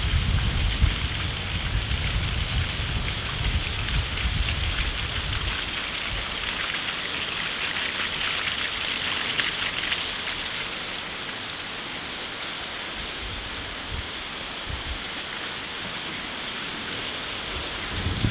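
Water falling and splashing steadily inside a brick tunnel, a continuous rain-like hiss that thins out about halfway through. A low rumble sits under it for the first few seconds.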